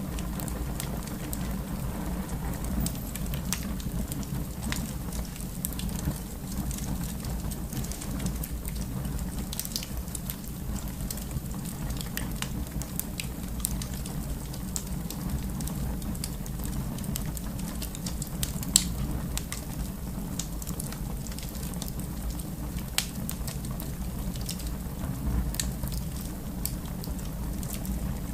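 Wood fire burning in a fireplace: a steady low rumble of flame with scattered crackles and pops, and one sharper pop about two-thirds of the way through.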